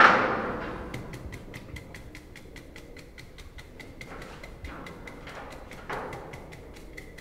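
A sudden hit that rings out over about a second, then steady fast ticking, about five ticks a second, like a clock sound effect, with a soft swell near the end.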